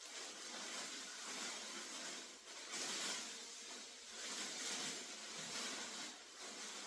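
Rustling hiss that swells and fades every second or so, from the wall-mount hose reel and its packaging being handled.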